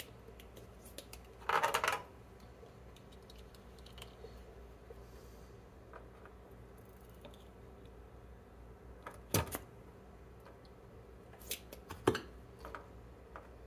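Small clicks and taps of bench work while components are desoldered from a circuit board, with a short noisy burst about a second and a half in and a few sharp clicks near the end, over a faint steady low hum.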